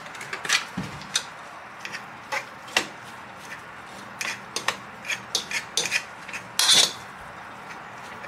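Metal fork mashing boiled red-skin potatoes in a stainless steel pot, clinking and scraping against the pot at an irregular pace. The loudest sound, a longer scrape, comes late on.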